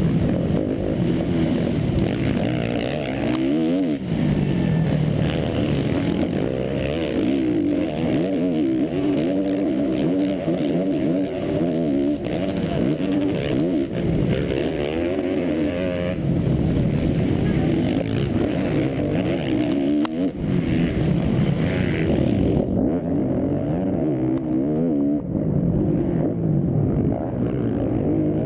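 On-board sound of a motocross bike's engine at race pace, revving up and dropping back over and over as the rider shifts and goes on and off the throttle through the track. Wind rushes over the microphone. Near the end the sound turns muffled.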